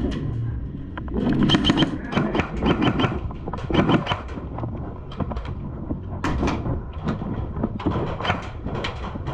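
A rapid string of sharp clicks and knocks, several a second, over a steady low rumble.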